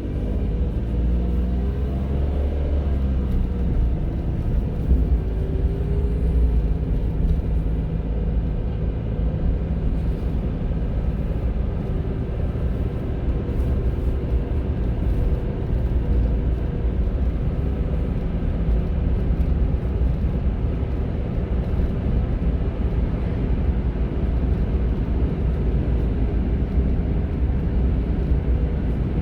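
Honda N-ONE kei car driving: its small three-cylinder engine rises in pitch over the first few seconds as the car picks up speed, then runs at a steady cruise under a constant low road rumble.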